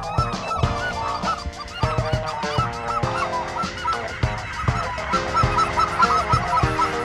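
A large flock of cackling geese calling overhead: many short, high-pitched yelping calls overlapping without a break.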